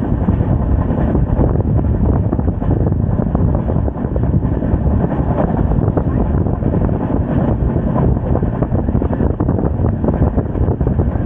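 Steady running noise of the Cholan Superfast Express passenger train under way, with wind buffeting the microphone.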